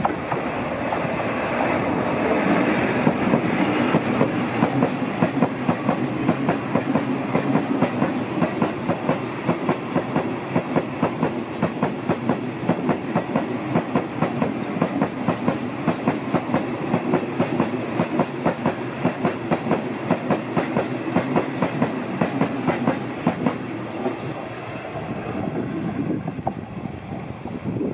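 Freight train of loaded hopper wagons rolling past close by, the wheels clicking over the rail joints in a rapid, even rhythm over a steady rumble. The clicking fades near the end as the last wagon goes by.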